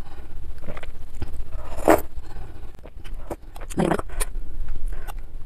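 Slurping spicy meatball soup broth from a metal spoon: two short, loud slurps about two and four seconds in, with light clinks of the spoon against the ceramic bowl.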